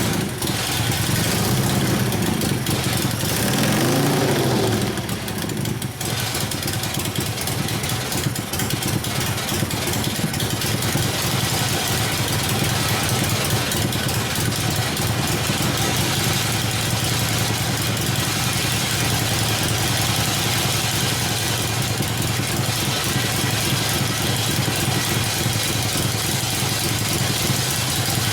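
1972 Harley-Davidson Ironhead Sportster's rebuilt V-twin engine running, revved up and back down once about four seconds in, then idling steadily.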